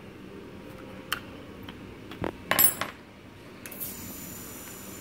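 Light metallic clicks and clinks of an Allen key against the sensor's metal mounting as it is tightened, with a louder cluster of clinks about two and a half seconds in.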